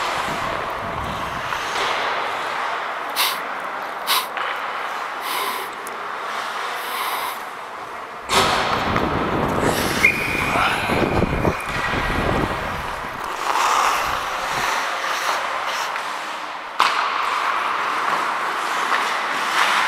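Ice hockey being played on a rink: steady scraping of skate blades on the ice, with a few sharp clacks of sticks and puck and a louder, rougher stretch of scraping about eight seconds in.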